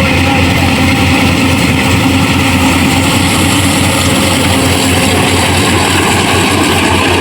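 Yanmar AW70 VW combine harvester's diesel engine and machinery running loud and steady, with a constant low hum.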